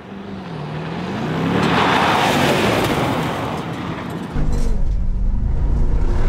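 Mercedes-AMG G63's twin-turbo V8 engine running, its note rising and falling, under a swell of driving noise that builds over about two seconds and then fades. About four seconds in it changes abruptly to a louder, deeper engine rumble.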